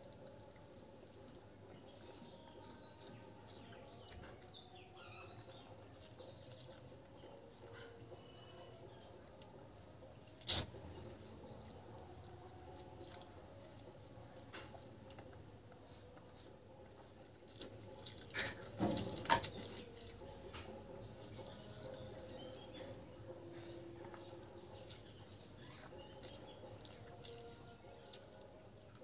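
Fingers kneading rice mixed with dal on a plastic plate: soft, wet squishing with many small clicks. One sharp click comes about ten seconds in, and a short run of louder knocks a little past halfway.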